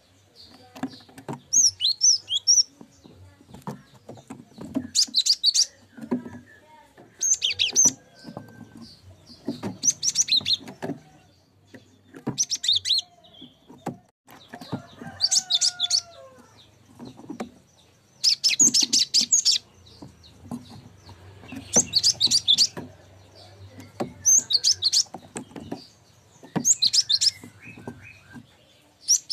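Cinereous tit (gelatik batu) singing: short bursts of high, quick chirping notes, repeated about every two to three seconds.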